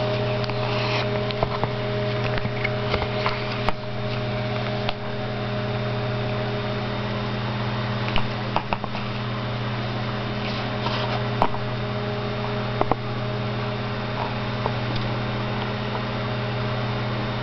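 Steady mechanical hum with a few fixed low tones, with irregular clicks and taps as a paper clock and its cardstock faceplate are handled.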